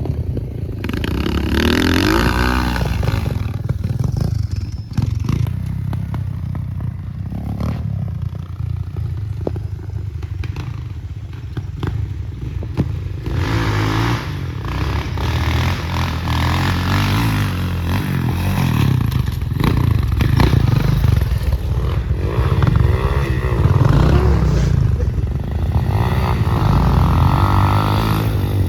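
Motorcycle engine running and revving, its pitch rising and falling again and again.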